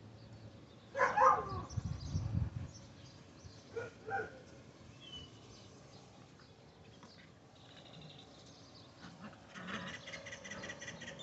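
A dog whining in short pitched cries, about a second in and again briefly near four seconds, with a single bird chirp in between.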